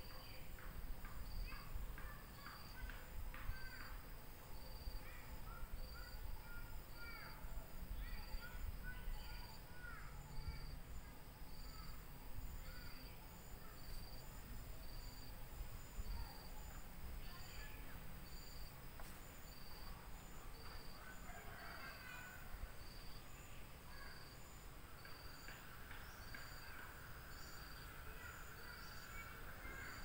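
Birds calling with short rising and falling notes, mostly in the first half, over a high-pitched insect chirp repeating steadily about once a second, typical of a cricket. Near the end a bird or insect holds a steady whistling tone.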